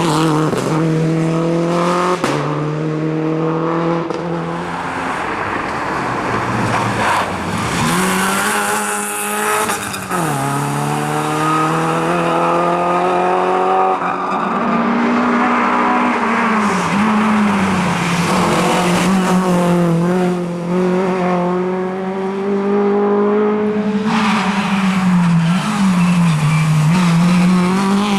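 Rally car engine revving hard, its pitch repeatedly climbing and dropping with gear changes and lifts of the throttle, with tyres squealing.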